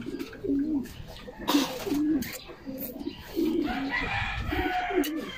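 Doves cooing repeatedly in a string of short low coos, with a brief scuffing noise about a second and a half in.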